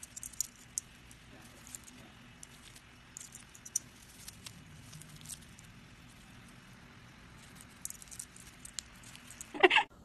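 White-bellied caique wriggling on its back in a fleecy blanket: soft scratchy rustling and scattered small clicks of claws and beak on the fabric. A brief, louder pitched sound comes just before the end.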